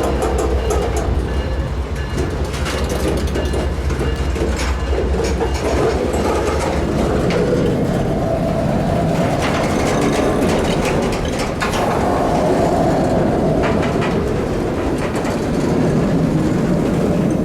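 Canadian Pacific freight train rolling past, its wheels clicking and rattling over the rails. A deep low rumble fades out about seven seconds in.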